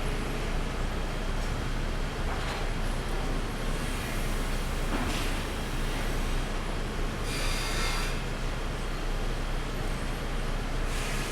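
Pallet sawmill machinery running steadily with a constant low hum, broken by a few short noisy bursts. The longest and highest-pitched comes about seven seconds in.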